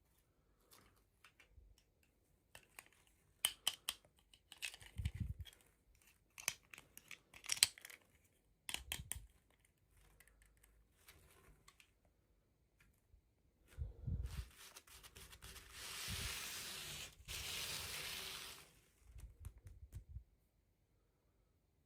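Toy packaging being handled and opened: scattered crinkles and clicks, then a steady tear lasting about three seconds with one short break, and a few soft thumps.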